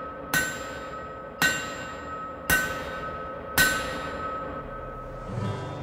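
Four evenly spaced metallic clangs, about one a second, each ringing on like a struck bell. An acoustic guitar begins playing low notes near the end.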